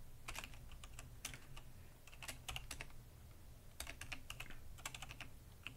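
Computer keyboard typing: irregular clusters of key clicks with short pauses between them.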